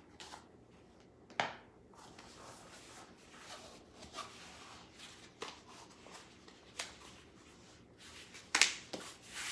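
Hands handling items from an unboxed package: faint rustling and rubbing, with a sharp tap about a second and a half in and two more near the end.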